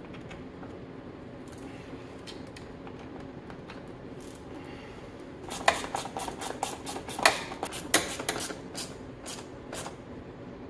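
A small metal hand tool clicking and clinking against a fastener under a motorcycle's rear fender: a steady faint hum at first, then from about halfway in a run of sharp, irregular metallic clicks that stops a little before the end.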